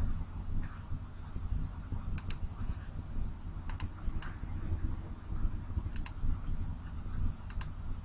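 Computer mouse clicks: a few sharp clicks, several in quick pairs, spaced a second or more apart, over a steady low hum.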